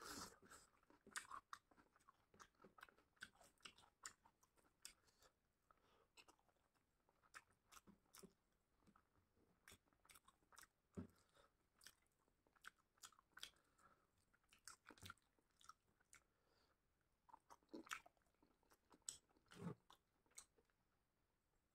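Faint close-miked chewing: scattered wet mouth clicks and smacks of a person eating rice and chicken with his hand.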